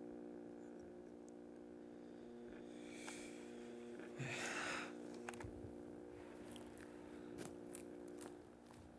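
Quiet steady low hum with two brief rustles, the second louder, about three and four and a half seconds in, then a few faint ticks.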